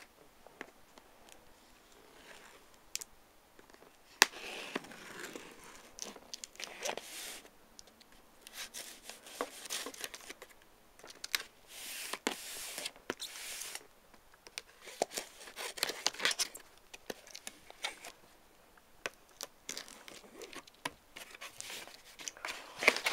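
Cardboard shipping box being opened by hand: packing tape tearing and cardboard flaps scraping and rustling, in irregular bursts with sharp clicks between.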